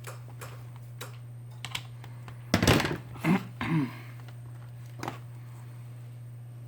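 Small clicks and taps of metal tweezers and adhesive strip being handled on a workbench while thin adhesive is laid around a phone frame. About two and a half seconds in there is a louder scratchy rustle with a couple of short squeaks. A steady low hum runs underneath.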